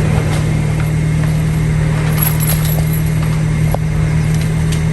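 Car engine running, a steady low hum with rumble beneath it, and a few faint clicks.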